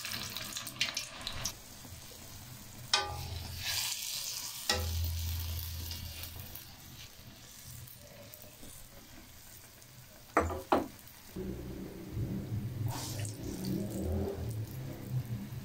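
Maash (urad) dal bhalla batter sizzling as it deep-fries in hot ghee, a steady hiss of bubbling fat. A few sharp clicks of a spoon against the pan come through, a couple near the start and one about two-thirds of the way in.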